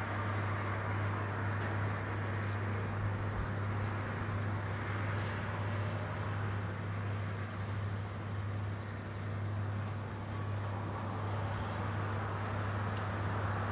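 Rice combine harvester running while harvesting: a steady low engine hum under an even wash of machinery noise.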